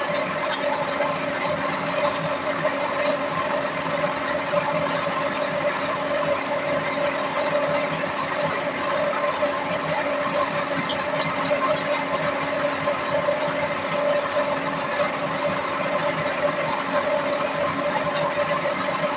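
Steady machine hum, like an engine or motor running without change in pitch, with a few faint clicks near the start and about eleven seconds in.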